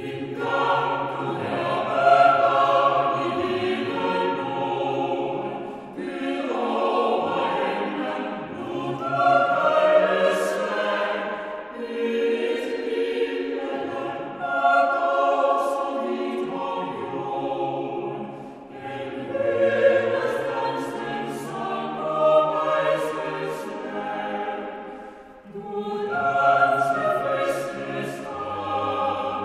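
A choir singing, in long phrases broken by short pauses.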